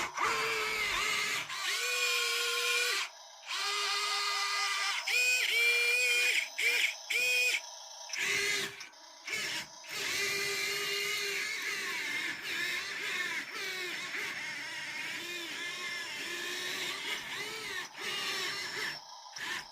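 Small electric gear motors of 1:50 scale RC construction models whining in stop-start bursts, their pitch wavering and dipping as they run; a longer stretch of running from about halfway through.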